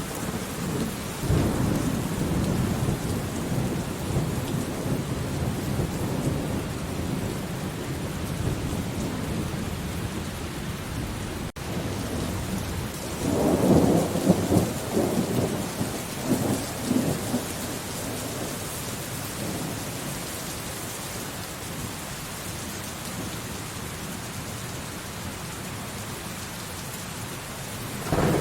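Steady rain with rolling thunder: a low rumble swells about a second in, and a louder peal with several surges comes a little after halfway and fades over a few seconds. A split-second gap in the sound falls just before the middle.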